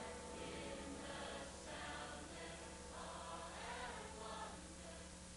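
Faint choir singing with a steady low hum underneath.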